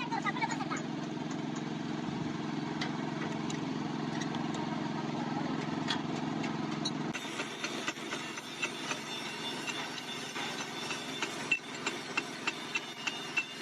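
A steady mechanical hum, then, after an abrupt change about seven seconds in, a series of sharp clicks and knocks, like tool work in a workshop.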